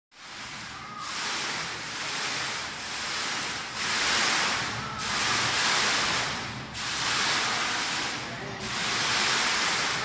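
Digital waterfall's curtain of falling water splashing down, a steady rushing hiss that dips briefly every second or two.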